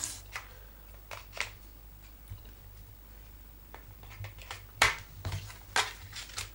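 Sharp plastic clicks and taps from a Samsung Galaxy Core LTE smartphone being handled: a few light clicks as the battery is moved, then a quick run of louder snaps about two thirds of the way in as the back cover is pressed on and its clips catch around the edge.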